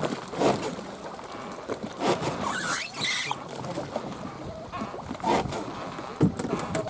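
Irregular sloshing and knocking of water against a small fishing boat, with scattered handling rustles and bumps.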